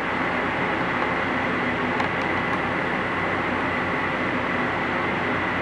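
Steady outdoor noise with a faint constant high hum, no speech.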